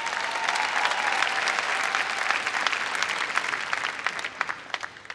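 Audience applauding. The applause swells quickly, holds, then thins to scattered separate claps near the end.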